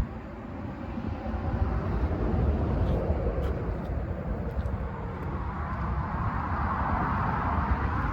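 Outdoor background noise: a steady low rumble, with a few faint clicks.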